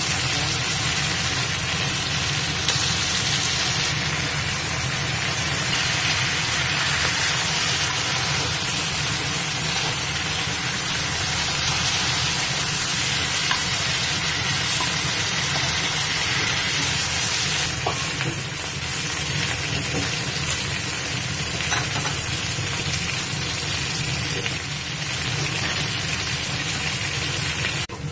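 Beef tail pieces sizzling steadily as they are stir-fried in hot oil in a wok, with a few light clicks.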